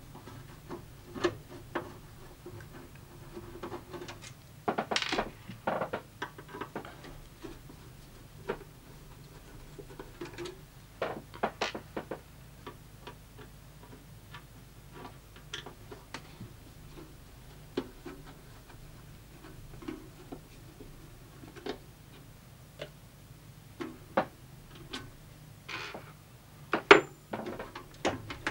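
Scattered small metallic clicks and knocks as screws are undone and the sheet-metal bottom cover of a JVC HR3330 VHS video recorder is handled and loosened. There is a cluster of knocks about five seconds in and a single louder knock near the end, over a faint steady low hum.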